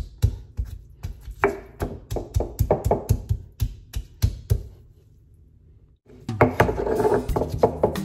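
Stone pestle pounding peeled garlic cloves in a black volcanic-stone molcajete, quick knocks of stone on stone about three to four a second, as the garlic step of curing a new molcajete. The pounding stops a little past halfway, and after a short pause background music comes in.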